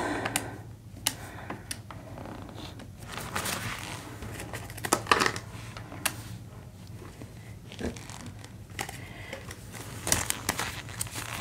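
Australian polymer banknotes being handled and counted, crinkling and flicking, with scattered clicks of plastic calculator keys being pressed.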